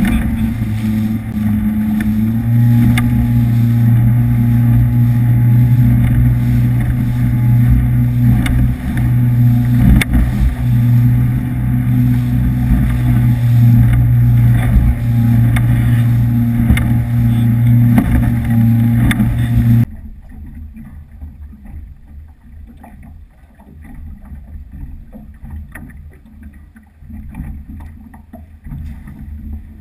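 Powerboat engine running at steady high speed, a loud, even drone with wind and spray noise, and occasional sharp thumps as the 18 ft catamaran's hull hits the chop. About twenty seconds in it cuts to much quieter wind and water noise at the idle boat.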